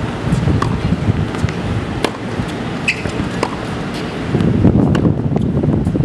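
Tennis balls struck by rackets and bouncing during a practice rally: a series of sharp pops, roughly a second apart. Wind rumbles on the microphone, heavier from about four seconds in.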